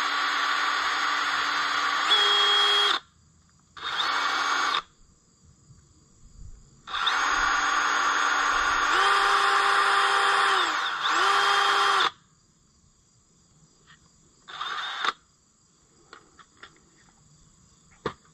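Handheld electric power tool running in several bursts as it cleans up a part: a run of about three seconds, a short one, a longer run of about five seconds, and a brief one near the end. The pitch shifts partway through the longer runs.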